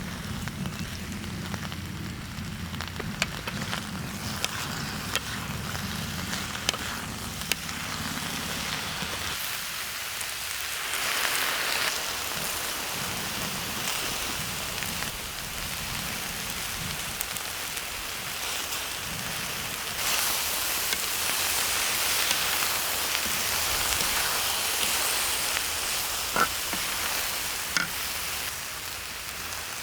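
Food sizzling in oil on a cast-iron cauldron lid, a steady hiss that grows louder about a third of the way in and again past the middle. A low hum sits under it for the first nine seconds or so, and a few sharp taps, like a utensil on the lid, come through.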